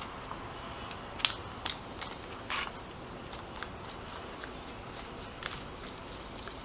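Scattered small clicks and taps of copper wire being hooked around a terminal screw and a screwdriver working on an outlet in a plastic electrical box. Near the end a high, fine rattling buzz lasts about two seconds.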